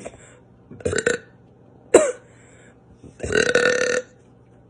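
A girl burping: two short burps about one and two seconds in, then a longer, drawn-out burp about three seconds in. It is a stuck burp that she is straining to bring up and that she says has come only halfway.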